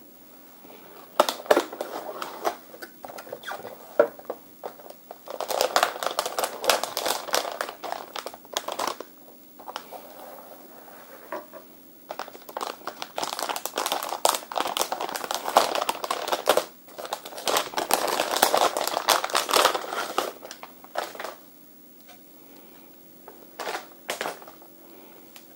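Packaging being handled during an unboxing: crinkling and rustling of plastic wrap and cardboard in two long bouts, with a few short clicks near the end.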